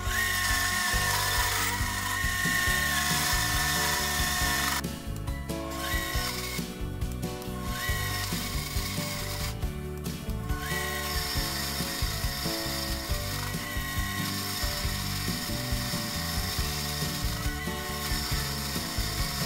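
A mini metal lathe turning a 2-inch precision ground steel shaft with a tangential cutting tool. It makes a steady high-pitched tone that breaks off briefly a few times: the cut is chattering because the light lathe vibrates. Background music plays underneath.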